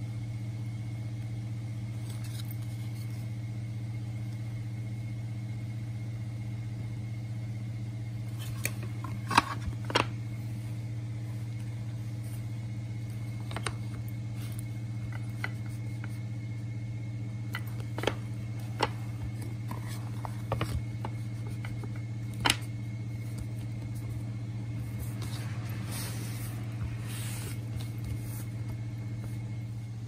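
A steady low machine hum sits under scattered sharp clicks and taps of thin wooden pieces being fitted together by hand. Near the end, a cloth rubs over the wood surface.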